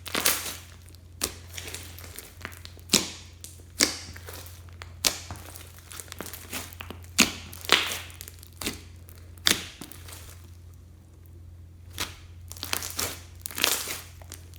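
Slime being squeezed and stretched by hand, giving irregular sharp sticky pops and crackles about once a second, several in quick succession near the end, over a low steady hum.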